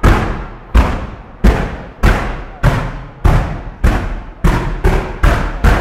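Daytime fireworks display of ground-fired petards going off in a steady string of loud bangs, about one every two-thirds of a second and quickening near the end, each dying away in a short ringing echo.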